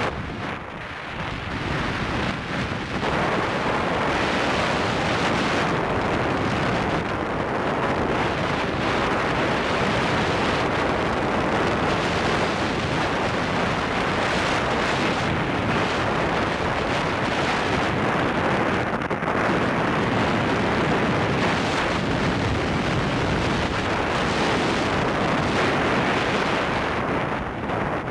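Wind rushing over the microphone of a moving motorcycle, a steady loud roar that builds over the first few seconds and then holds level.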